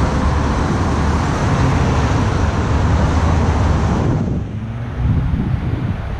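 Road traffic noise at an intersection: a steady roar of passing cars' engines and tyres mixed with wind buffeting the microphone, which drops away sharply about four seconds in.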